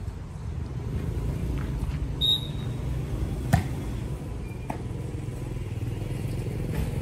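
An engine running steadily, a low hum that grows slowly louder, with a few sharp knocks and a brief high chirp about two seconds in.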